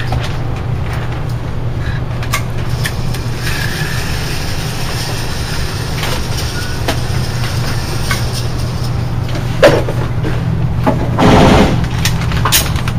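A steady low hum with scattered sharp cracks of pistol shots and one loud bang about ten seconds in.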